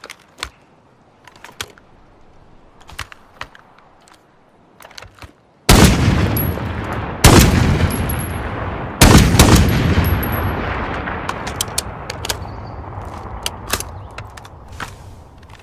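Barrett M82A3 .50 BMG rifle firing three loud shots about a second and a half apart, each followed by a long echo that dies away slowly. Faint scattered clicks come before the first shot.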